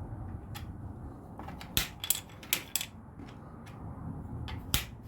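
Small plastic LEGO pieces being handled and pressed together: a handful of sharp clicks and light clatter, bunched about two seconds in and with one more near the end.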